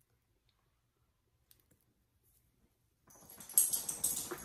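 Garlic powder being shaken from a spice container. A dense run of quick rattling clicks starts about three seconds in.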